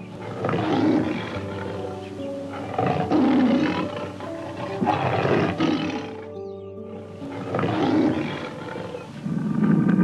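A big cat roaring and growling, a rough call every couple of seconds, over soft piano music. The calls grow loudest near the end.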